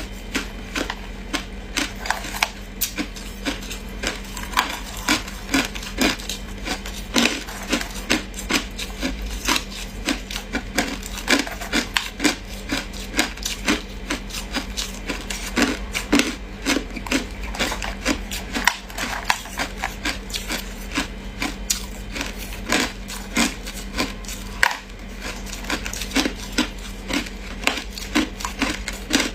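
Hard ice being chewed close to the microphone: a continuous run of sharp, brittle crunches, a few a second.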